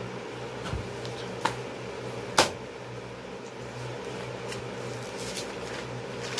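A steady low mechanical hum, as from a fan or appliance, with a few sharp clicks over it; the loudest click comes about two and a half seconds in.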